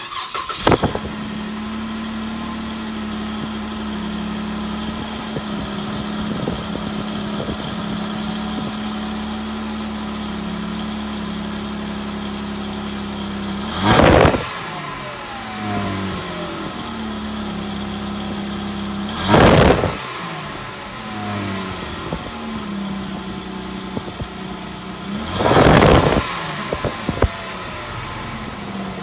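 2014 Jeep Wrangler JK's 3.6-litre V6 exhaust through the stock muffler, cold-started: it cranks and catches, settles into a steady idle, then is revved briefly three times, about every six seconds, dropping back to idle after each.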